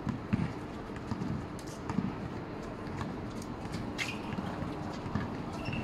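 A basketball bouncing on a hard outdoor court several times, the strongest bounces near the start and about two seconds in, with a few sharp squeaks or clicks of shoes near the middle. A faint low steady hum runs underneath.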